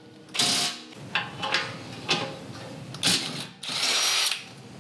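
Cordless power driver running in several short bursts, the longer ones near the start and near the end, backing out the bolts that hold a Jeep Wrangler JL's factory skid plate support to the frame.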